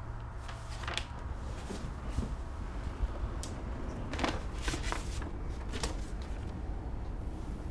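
A person moving about and handling things in a room: scattered soft clicks and short rustles over a low steady hum.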